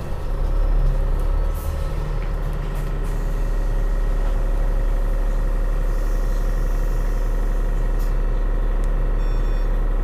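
Double-decker bus running steadily, heard from inside the passenger cabin as a continuous deep, low hum.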